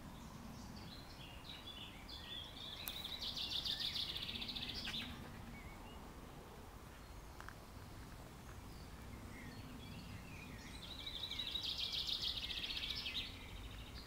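A songbird singing two short song phrases about eight seconds apart, each a run of chirps building into a fast trill, over a faint steady background hiss.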